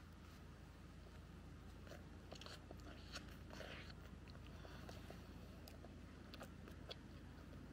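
Faint close-up eating: a sandwich being bitten and chewed, soft crunching with small clicks and crackles that are busiest about two to four seconds in.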